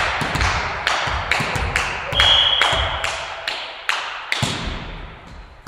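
Sharp, irregular slaps echoing around a sports hall, several a second, from a volleyball match between rallies. A short, steady whistle blast sounds about two seconds in, the kind a referee gives to signal the serve.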